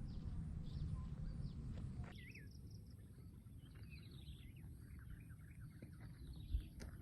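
Birds chirping and calling in many short, quick notes over a steady low rumble. The sound changes abruptly about two seconds in, after which the chirps stand out more clearly. There is a single sharp knock near the end.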